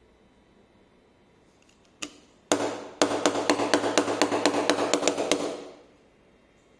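Electric chiropractic adjusting gun (GINHA 750 N spine adjustor) firing its impulse head. A single click comes about two seconds in and a strike half a second later, then a rapid, even train of sharp knocks at about six a second for some two and a half seconds, with a low hum underneath.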